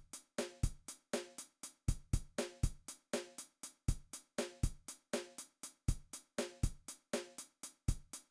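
A dry drum beat on its own: kick, snare and a steady hi-hat at about four hits a second, with no guitar playing over it.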